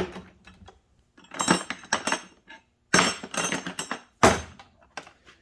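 Metal hand tools clinking and clattering as they are handled and shifted in a tool-box drawer. The clatter comes in several short bursts, with one sharp knock a little over four seconds in.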